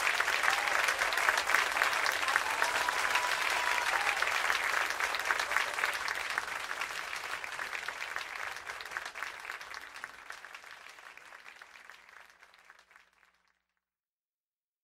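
Concert audience applauding, the applause fading out gradually until it stops about thirteen seconds in.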